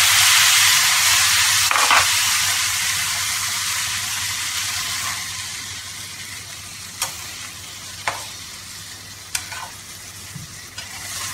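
Water poured into a hot kadai of spiced chickpeas and ghee hisses loudly, the sizzle dying away steadily over several seconds. A metal slotted spoon stirring the chickpeas clicks against the pan a few times in the second half.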